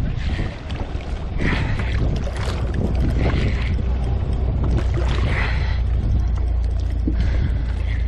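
Wind buffeting the microphone on a kayak at sea, a steady low rumble, with a hissy swish of water every second or two.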